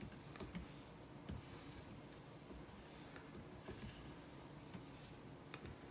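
Faint, light stropping strokes of a 4000-grit Edge Pro diamond matrix polishing stone across a steel knife edge, the stone cutting with barely any sound, with a few soft rubs and small clicks.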